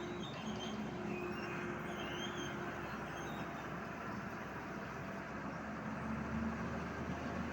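A motor vehicle engine running steadily amid street noise, its low hum growing stronger about six seconds in.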